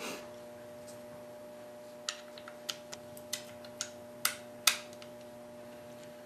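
Light, irregular clicks of small metal parts in a Smith & Wesson M&P pistol frame as the freshly installed Apex aluminum AEK trigger assembly is handled and worked by hand: about ten clicks, the last two loudest.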